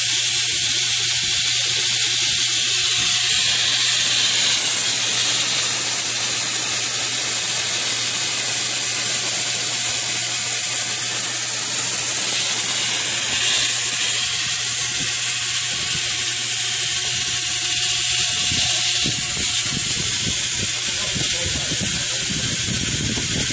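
A steady, loud hiss over an even low hum, with no let-up.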